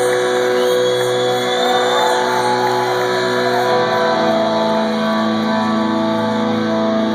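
Live rock band playing loudly, with electric guitars holding chords; the chord changes about three and a half seconds in.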